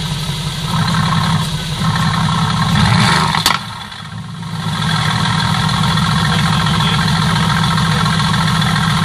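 Mercedes-AMG GT S 4.0-litre twin-turbo V8 idling through its exhaust. The engine note swells slightly, then there is a single sharp crack about three and a half seconds in. The engine sound drops away briefly before returning to a steady idle.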